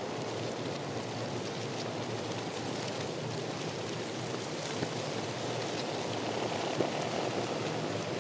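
Steady rain falling, with scattered individual drop hits and one sharper drop late on.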